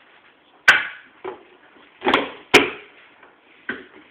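Two sharp knocks about two seconds apart, with shorter scuffing noises around them.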